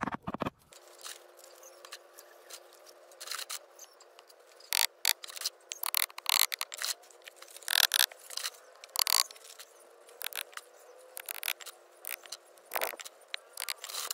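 Broken ceramic tile pieces clicking and clacking against each other as they are set down one at a time on a sand bed. The clacks come at irregular intervals over a faint steady hum.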